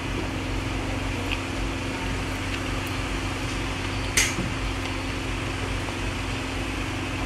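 Steady mechanical hum with a few constant low tones, with one short sharp clink about four seconds in.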